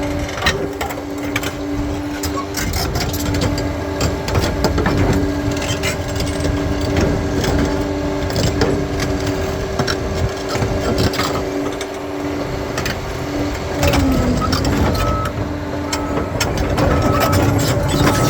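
Bulldozer working through stony ground: its engine runs steadily with a whine from the drive, over constant cracking and knocking of rock and steel tracks. About fourteen seconds in the engine pitch dips under load and recovers, and a short high beep starts repeating.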